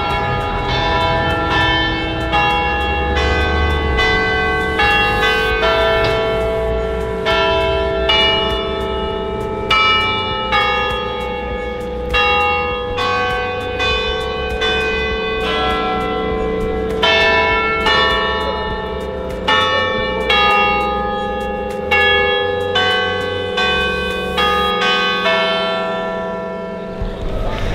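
Church bells ringing, a long run of strikes about one every half second to a second, their ringing tones overlapping over a steady hum.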